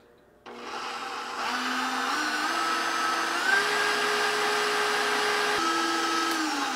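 KitchenAid stand mixer motor whirring as its wire whisk beats cold heavy cream. The motor starts about half a second in and its whine steps up in pitch several times as the speed is raised. It steps down once about five and a half seconds in, then winds down near the end.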